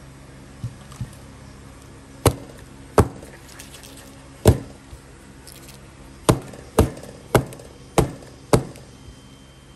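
Batter-filled metal loaf pan being knocked down on the table again and again to settle the batter: two light knocks, then eight loud ones, the last five about half a second apart.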